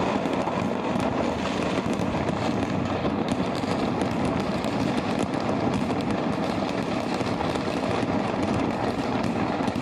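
Stock of firecrackers burning in a warehouse fire, setting each other off in a dense, continuous crackle and rattle of small bangs with no pauses.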